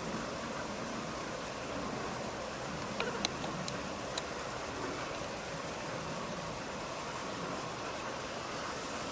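Steady rushing background noise, with four brief, sharp high clicks or chirps about three to four seconds in.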